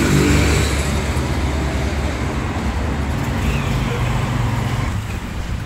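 Motor vehicle engine running, over steady road-traffic noise.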